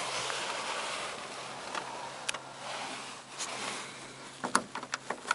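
Steady hiss with a faint low hum in a small car's cabin, then a quick cluster of sharp clicks about four and a half seconds in as the interior roof light is switched.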